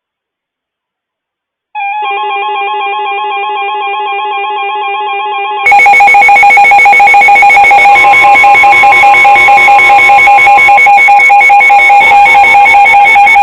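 Loud electronic alert tones from a Midland WR300 weather radio sounding for a flood warning. A wavering tone starts about two seconds in, and a louder, fast-pulsing tone takes over about six seconds in.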